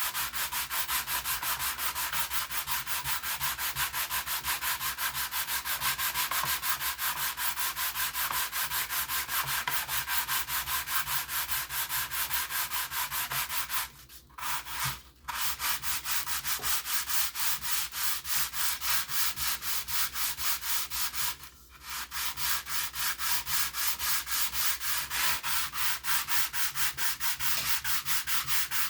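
Styrene plastic sheet being sanded by hand in rapid, even back-and-forth strokes, a rasping scratch that stops briefly twice about halfway through and once more later; the edges of the styrene are being smoothed and trued.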